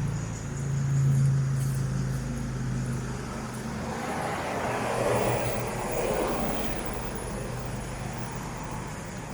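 Road traffic: a low, steady engine drone, strongest in the first few seconds, then a rushing swell of a passing vehicle around the middle.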